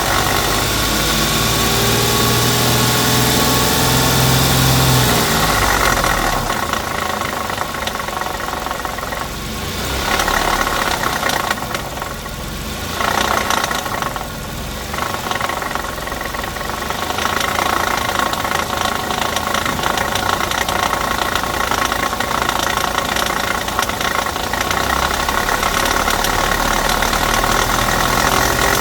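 Dodge Intrepid's 2.7-litre V6 engine running, with a few changes in pitch in the first five seconds before it settles to a steady run.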